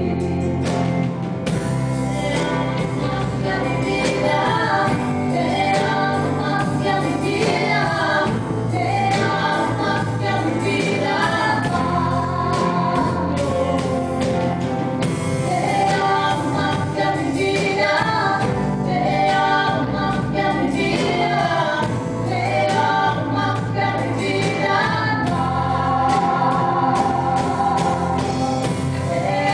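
A woman singing a song through a microphone, backed by a live band of guitars and drums.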